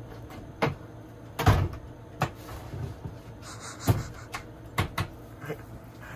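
Hard plastic knocks and clunks as the top section of a composting toilet is set onto its base: six or so sharp knocks, the loudest about one and a half seconds in.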